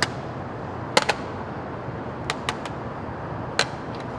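About six sharp, irregular clicks, two of them in quick pairs, from pliers and small plastic parts being handled, over a steady low background hum.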